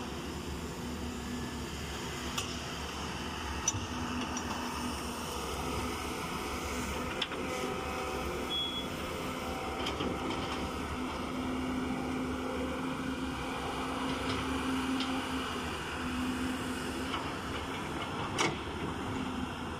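Diesel engines of several Caterpillar tracked excavators running steadily as they dig, with a few sharp knocks, the loudest near the end.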